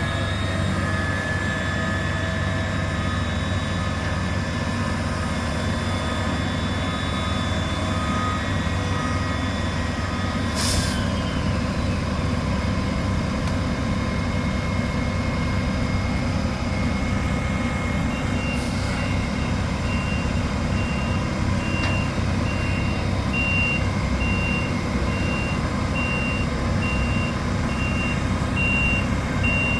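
Heavy truck engine running steadily. A backup alarm beeps about once a second from about two-thirds of the way in, and two short air hisses come before it.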